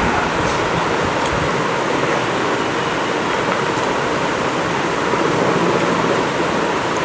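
Steady rushing background noise at an even level, with a few faint ticks.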